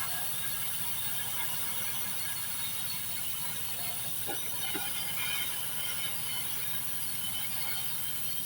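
Steady hiss and crackle of a TIG welding arc laying a root pass on stainless steel pipe with 316 filler wire, over a low steady hum, with a few faint clicks about four to five seconds in.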